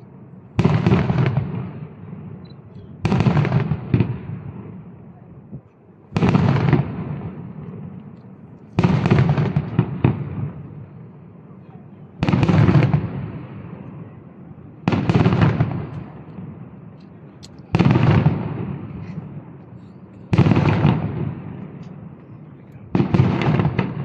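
Aerial firework shells bursting in a steady sequence: nine sharp bangs about every two and a half to three seconds, each followed by a long fading rumble.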